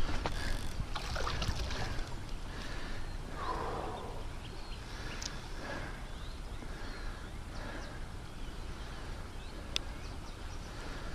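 Small birds chirping and calling repeatedly over a steady low rumble, with one sharp tick near the end.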